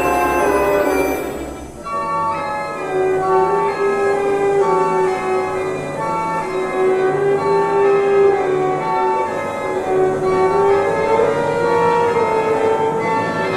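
Instrumental film score played by a small ensemble: a slow melody of held notes over a low accompaniment. The music thins out briefly about two seconds in, then carries on.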